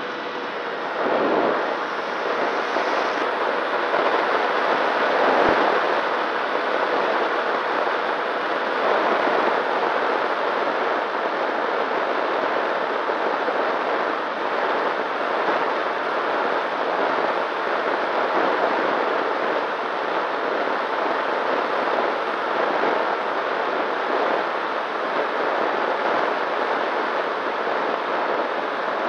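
Steady rush of wind over the onboard camera of a Nano Talon FPV plane in flight, with a faint steady hum from its electric propeller motor.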